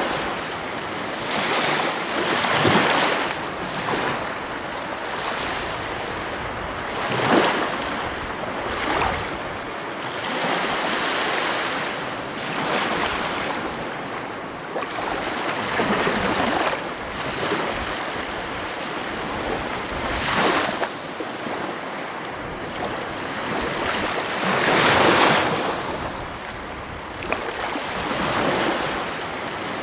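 Heavy ocean waves breaking on the shore over a constant wash of surf, with louder crashes every few seconds.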